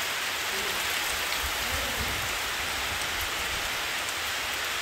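Heavy rain falling steadily on trees and a wet tiled terrace, an even, unbroken hiss.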